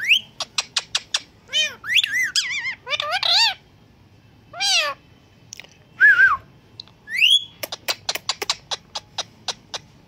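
Indian ringneck parakeet calling in a string of arched, meow-like cries that imitate a cat, mixed with rising and falling whistles. Runs of quick, sharp clicks come near the start and again over the last two seconds or so.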